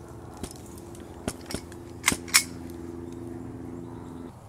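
Handgun handling: a pistol drawn and readied, heard as five sharp metallic clicks, the loudest two close together about two seconds in. A steady low drone sounds under them and stops shortly before the end.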